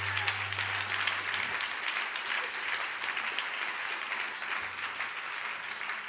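Audience applauding steadily. A low note from the acoustic guitar dies away under the clapping in the first second and a half.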